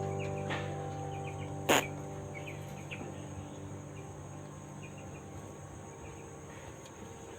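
Crickets chirring steadily, with a few short bird chirps and one sharp click about two seconds in. Underneath, a guitar chord fades away.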